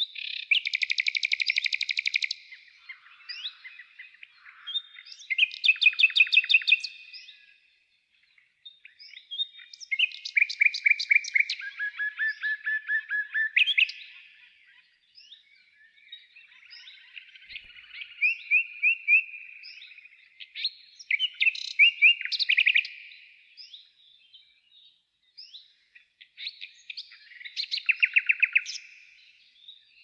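Songbirds singing in a forest: about six separate phrases of rapid trilled notes, each one to three seconds long, with short pauses between them.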